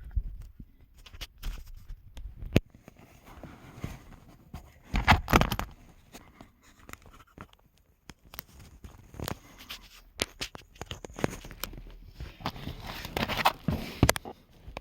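A flat screwdriver scraping and clicking against a rear-seat locking clip, with scattered knocks and handling noises. There are louder bursts of scraping about five seconds in and again near the end.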